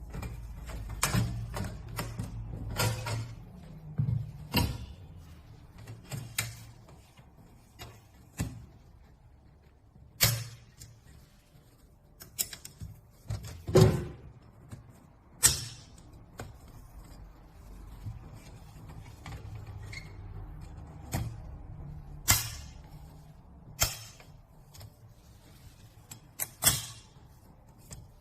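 Irregular sharp clicks and knocks, about one every second or two, from a stainless-steel folding campfire table being handled, its parts unfolding and setting into place.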